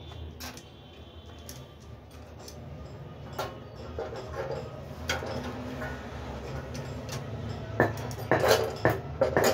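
Metal parts and tools clinking and knocking while a 14-inch cut-off machine is worked on, with several sharper knocks near the end, over a low steady hum.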